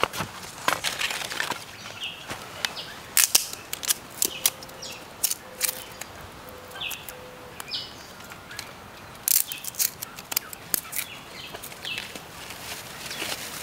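Dry bamboo being split and snapped into thin strips by hand: a run of sharp cracks and splintering clicks in irregular clusters, loudest about three seconds in and again around nine to eleven seconds.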